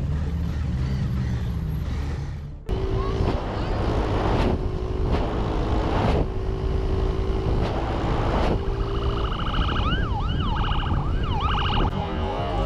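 Sport motorcycle engine idling, then, after a sudden cut, a motorcycle running under way. About ten seconds in, a police siren wails in quick rising-and-falling sweeps for about two seconds.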